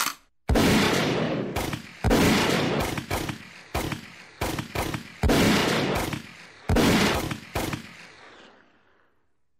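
Gunshots: a string of about ten shots at uneven intervals, each followed by a long echoing tail, the last tail fading out about nine seconds in.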